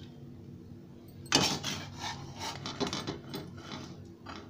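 Metal spatula scraping and clinking against a frying pan as fried brinjals are lifted out, a quick run of scrapes starting about a second in and one more near the end.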